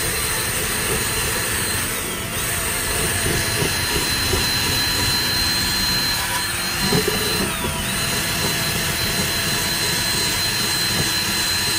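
Cordless drill driving a black abrasive strip disc against the bottom of a cast iron skillet, grinding off rust and old seasoning. The drill's motor gives a steady high whine over the scrubbing noise of the disc on the iron. The whine sags briefly twice, as the disc bears down harder.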